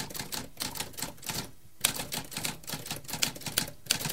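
Typewriter keys struck in quick succession, a rapid clatter of clicks that pauses briefly about a second and a half in, then resumes with a sharp strike and carries on typing.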